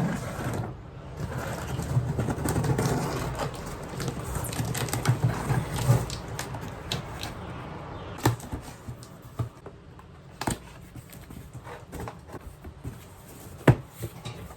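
Flat-pack cardboard box and its packaging being opened and handled: a few seconds of rustling, then scattered sharp knocks and clicks as parts are moved.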